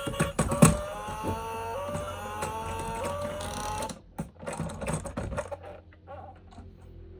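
Plastic toy vehicles being handled, with sharp clicks and rattles. Over the first four seconds a simple tune of stepped tones plays along with them; after that only scattered clicks remain.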